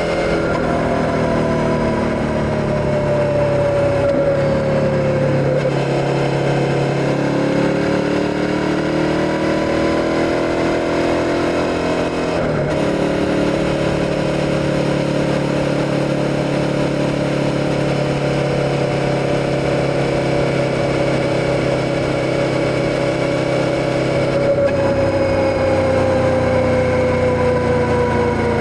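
Suzuki SV650's 645 cc V-twin engine running on the move. Its pitch falls, climbs again, holds steady for about ten seconds, then eases down near the end. Brief breaks in the note come about twelve seconds in and again near 25 seconds.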